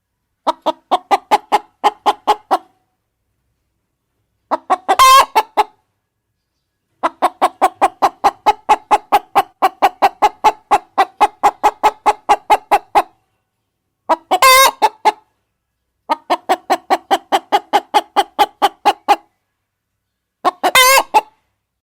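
Golden Buff hen cackling: quick runs of short clucks, about four to five a second, broken three times by a loud squawk. This is the pattern of a hen's egg-laying cackle.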